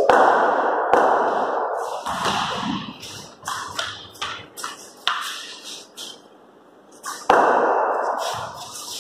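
Sharp knocks of a cricket bat and ball, each followed by a long echo. The loudest come at the start and about seven seconds in, with lighter taps of the ball on the floor in between.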